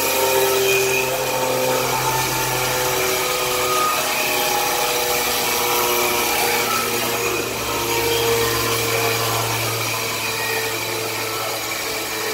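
Horizontal band saw running steadily and sawing wood planks fed along its conveyor, a continuous machine whir with a low hum beneath it.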